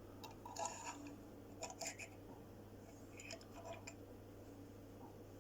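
Faint handling noises of a small die-cast toy truck being turned over in the hands: a few soft clicks and rustles, over a low steady hum.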